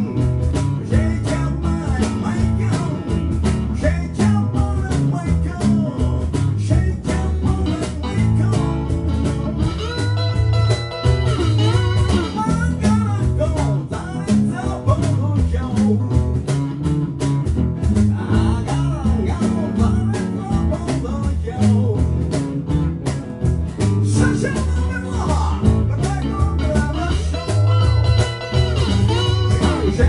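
Live blues band playing a boogie shuffle on acoustic and archtop electric guitars, with a rack-held harmonica playing bending lead lines over the rhythm at times.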